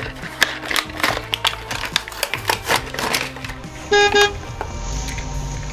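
Crinkling and crackling of a plastic blister pack being torn open, then two quick honks of a car-horn sound effect about four seconds in, over background music.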